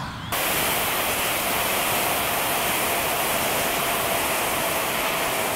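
Steady rush of wind over the onboard camera's microphone of a Ritewing Mini Drak flying wing in fast low flight, with a faint steady tone underneath. It begins abruptly a moment in.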